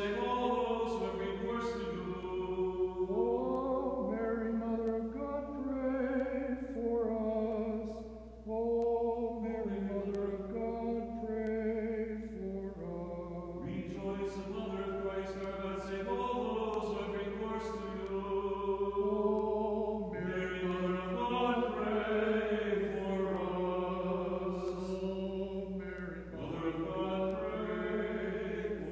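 Unaccompanied Orthodox liturgical chanting: a hymn sung in long, melodic phrases with short breaths between them.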